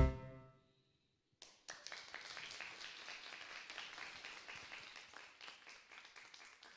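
A song's final chord rings out and dies away, then after a second of silence an audience applauds quietly, thinning out near the end.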